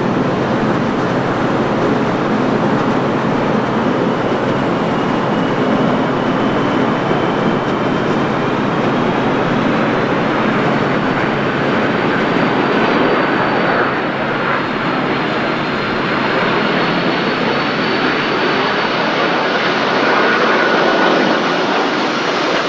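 Airbus A330-300 airliner with Pratt & Whitney PW4000 turbofans arriving to land: a steady jet roar with a high whine that rises over several seconds and then holds.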